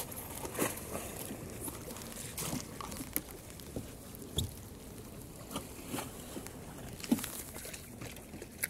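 Water lapping and trickling against a kayak hull, with scattered small knocks and clicks from the boat and its gear.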